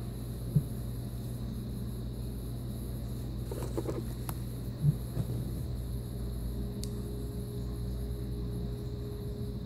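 Hands handling a laptop and its stylus over a steady low hum. There is a soft thump about half a second in, a brief rattle and click around four seconds, and another thump about five seconds in.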